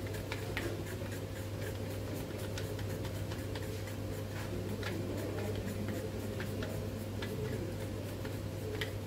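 Scattered light, irregular ticks of white chocolate flakes being crushed by hand and dropped onto a freshly glazed cake and its metal turntable, over a steady low hum.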